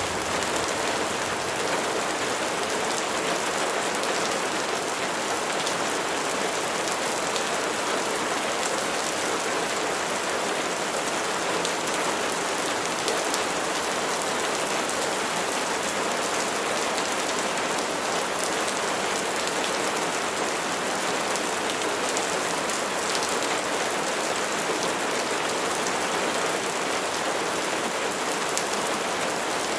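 Steady rain falling on a surface, an even hiss of many drops with no let-up.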